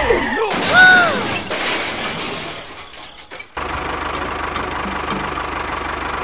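A short whistle-like tone that rises and falls, with a rushing noise that fades away. A little past halfway a steady engine-like running sound cuts in as a toy tractor drives along pulling a loaded trolley.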